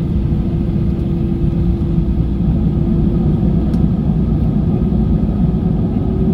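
Airbus A320-200 cabin over the wing while taxiing onto the runway: a steady low rumble of the engines at taxi power with a steady hum running through it.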